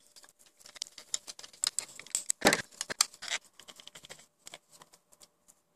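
A small screwdriver driving metric M3 screws into a 3D-printed plastic bracket, with scattered clicks and scrapes as the plastic parts are handled. There are two louder clicks about halfway through.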